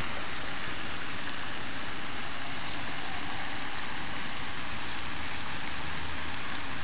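A steady, even hiss with no distinct sounds standing out of it.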